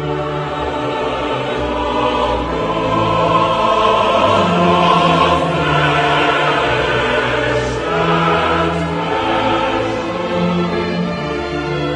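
Background music: a choir singing slow, long-held chords over an orchestra, swelling to its loudest in the middle.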